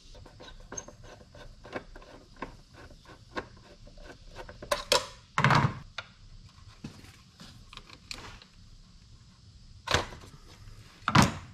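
Hands and tools working in a car's engine bay while loosening the clamps on the air cleaner box and its intake hose: a run of light, quick clicks, then a few louder clunks and knocks.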